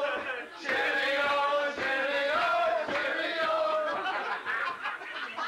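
A group of men singing together, a chanted song with long held notes and a short break about half a second in.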